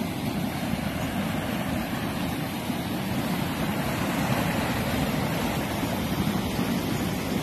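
Overflowing creek in flood after heavy rain: fast muddy water rushing over a dirt track, a low, steady rushing sound.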